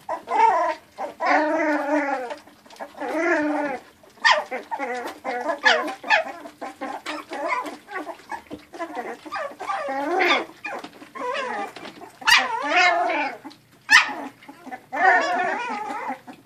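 A litter of young puppies whining and yelping: many short, high, wavering cries that overlap, with brief gaps between them.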